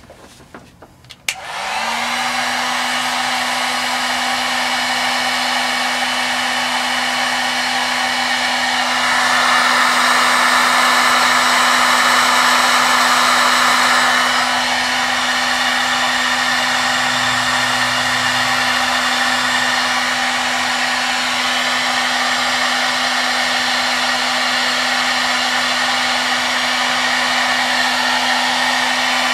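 Electric hot-air blower switched on with a click about a second in and running steadily, its motor humming under the rush of air, to shrink heat-shrink tubing over freshly crimped wire connectors. It grows louder for about five seconds midway.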